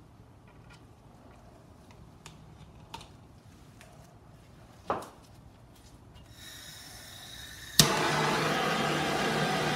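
A few light taps and a knock from handling tools, then a handheld gas torch: a faint hiss of gas, a sharp click as it lights near the end, and the flame's loud, steady hiss as it is passed over wet resin.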